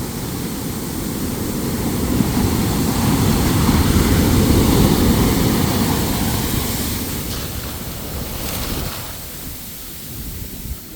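Large ocean waves breaking: a heavy rushing surge that swells to its loudest about four to five seconds in, then dies away.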